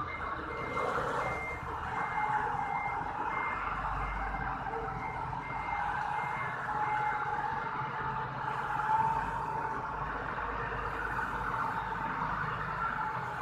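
Forklift's reversing alarm beeping about twice a second over the forklift's running engine; the beeping stops about seven seconds in while the engine runs on.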